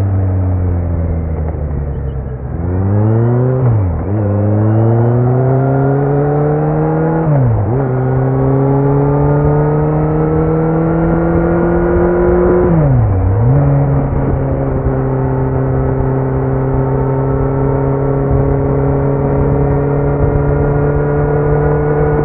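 2018 Kawasaki Z900's inline-four through a LeoVince slip-on muffler with no dB killer: the engine note falls as the bike slows, then it accelerates hard through three upshifts, each a quick sharp drop in pitch, about 4, 7.5 and 13 seconds in. After the last shift it settles into a steady cruise, the note rising only slightly.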